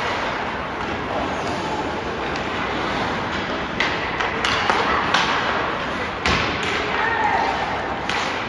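Ice hockey play in a rink: a handful of sharp knocks of puck and sticks against the boards and ice from about four seconds in, the heaviest a deep thud a little past six seconds, over a steady din of voices.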